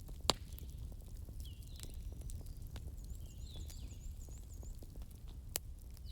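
Wood fire crackling: many small crackles over a steady low rumble, with two sharper pops, one just after the start and one near the end. Short high chirping calls come and go in the background.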